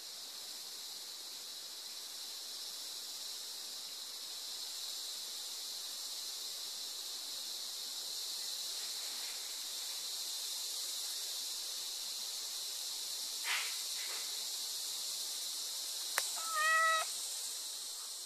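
A domestic cat gives one short meow near the end, over a steady high-pitched hiss. A sharp click comes just before the meow, and a fainter tap about two-thirds of the way through.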